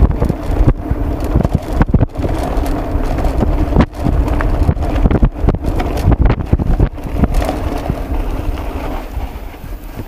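Mountain bike riding fast over a rough dirt trail: wind buffeting the handlebar camera's microphone, with the bike rattling and knocking over bumps many times. It eases off over the last couple of seconds.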